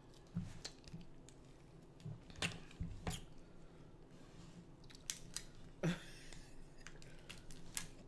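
Close-miked chewing mixed with the sharp snaps and crackles of cooked lobster tail shell being broken and peeled apart by hand, about half a dozen short cracks scattered through.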